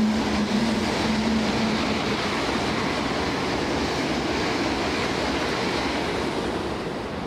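Keikyu electric train passing through a station at speed without stopping, as a kaitoku (limited express), with the steady rush of wheels and running gear going by. There is a low hum in the first two seconds, and the noise fades away near the end as the last car clears the platform.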